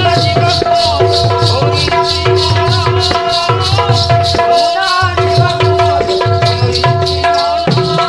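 Live Sambalpuri folk music: a barrel drum (dhol) beating in repeating patterns under a fast, even metallic jingle about five times a second, over long held melody notes.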